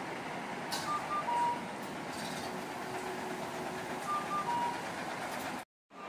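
Highway coach's diesel engine running as it pulls past, with road noise. A short electronic beep pattern, a quick double beep then a longer lower beep, sounds about a second in and repeats about three seconds later.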